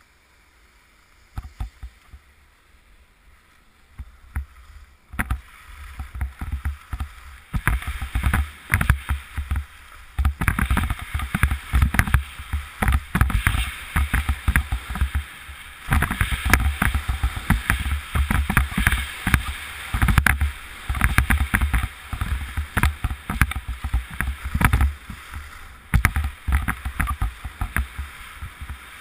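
Skis running down groomed corduroy snow, the edges hissing and scraping in uneven swells, with wind buffeting the microphone. It is nearly quiet at first and builds up about five seconds in as the skier gathers speed.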